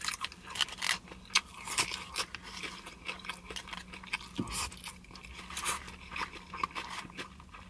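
Close-miked chewing of broken rice and grilled meat, with irregular wet mouth clicks and crackles, and a metal fork scraping in a styrofoam takeout box.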